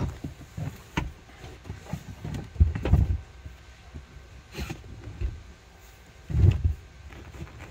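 Clicks, creaks and several dull thumps as the upholstered backrest of a folding van bed is pushed down on its metal hinge frame and the cushions settle flat. The heaviest thumps come about three seconds in and again near the end.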